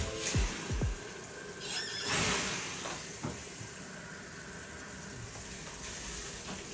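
Water running through newly connected PEX supply lines and out of a tap: a louder surge about two seconds in, then a steady hiss.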